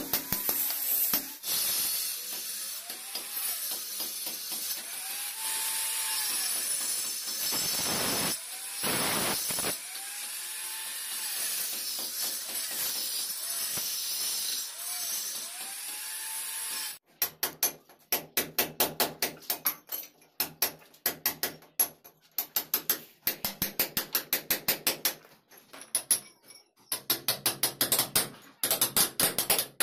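A steady rasping noise whose tone rises and falls every couple of seconds, then, about halfway in, rapid hammer blows on a steel chisel chipping a wiring channel out of a brick wall, several strikes a second with brief pauses.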